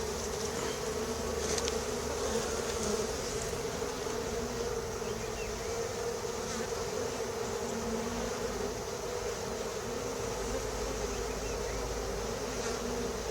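Honeybees buzzing in a steady hum around an opened hive as its frames are inspected.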